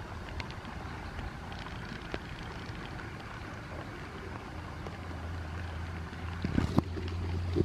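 Outdoor river sound around a small wooden boat: wind and water noise over a steady low rumble that strengthens in the second half. A few light clicks come from handling the net, then a cluster of wooden knocks about six and a half seconds in as the oar is taken up against the hull.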